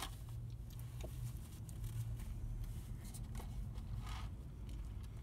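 Steady low rumble of a car idling, heard from inside the cabin, with faint rustling of food wrapping and a short rustle about four seconds in.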